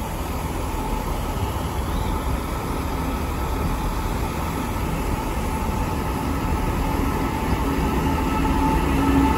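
Class 66 diesel-electric locomotive's two-stroke V12 diesel engine running as it approaches, a steady mechanical drone with a hum that grows gradually louder and a couple of steady tones coming up in the second half.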